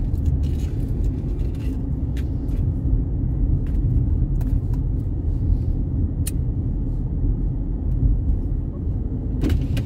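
A car driving at a slow, steady pace, with a constant low rumble of engine and tyres. A few brief, sharp clicks or knocks break in here and there.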